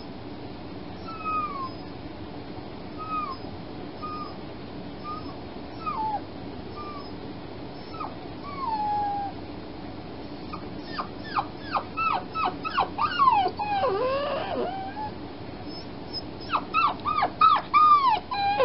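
A freshly spayed puppy whining: thin, high cries that slide downward, about one a second at first. From about halfway through they come in quick runs of short, sharp whimpers, with another run near the end.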